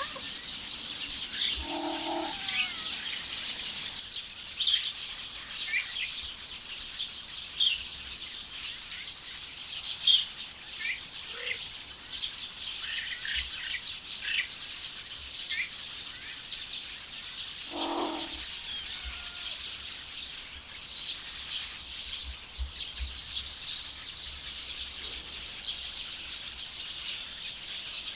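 Songbirds chirping and twittering continuously, with many short high chirps. A short, lower call sounds twice, about two seconds in and again about eighteen seconds in.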